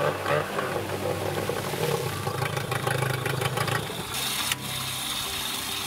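Yamaha 15 hp outboard motor running under load, its 3D-printed propeller churning water in a test tank. About four seconds in it drops back toward idle and the churning eases.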